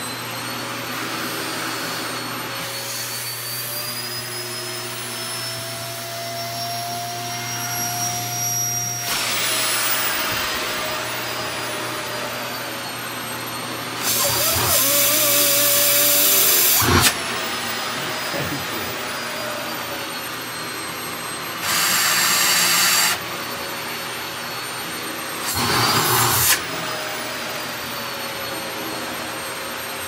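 Stick vacuum cleaner running steadily with a motor whine that rises slowly in pitch, then three short, louder rushes of suction noise.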